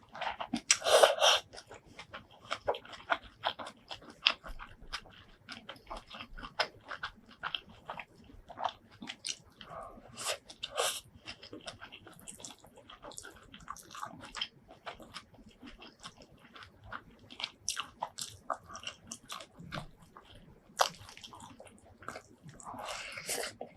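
Close-miked eating of shrimp curry and rice: steady chewing and biting, with many sharp, wet mouth clicks and crunches and a few louder bites.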